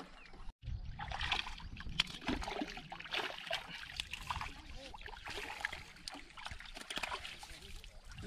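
Water splashing and trickling, with many small irregular clicks. The sound cuts out completely for a moment about half a second in.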